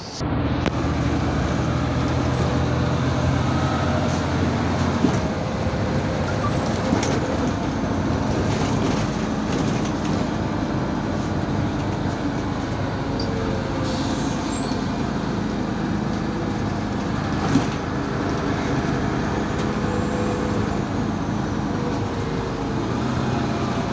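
MAZ-203 city bus heard from inside while driving: steady engine and road noise with low engine hum. A faint high whine falls slowly in pitch over the first several seconds, and a few short sharp clicks stand out.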